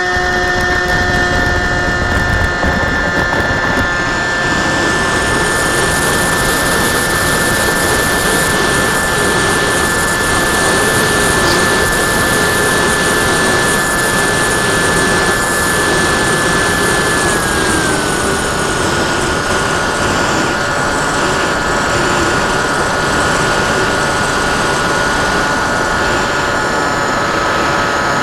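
Sky Cruiser 2400 model plane's electric motor and propeller whining at a steady high pitch, heard from the plane's onboard camera over rushing airflow that grows as it picks up speed. A little past halfway the pitch drops a step as the throttle is eased back.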